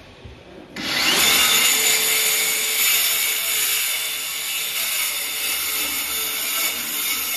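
Compact cordless circular saw spinning up about a second in and then cutting steadily through the wooden floor, a loud high-pitched sawing noise.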